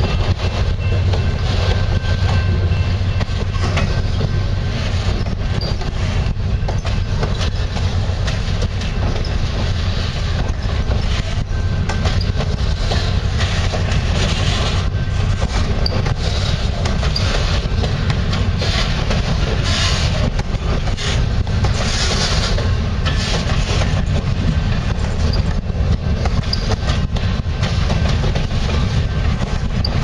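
Freight train of boxcars rolling past close by: a steady rumble of steel wheels on the rails, with continual clacking as the wheels run over rail joints.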